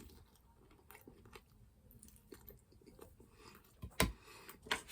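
A person chewing a mouthful of mini ham and cheese pizza, faint mouth sounds with soft crunches, and a couple of sharp clicks near the end.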